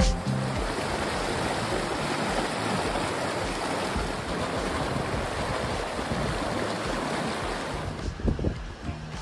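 A mountain stream rushing over rocks: a steady whitewater rush that eases off near the end, where a few low thumps come through.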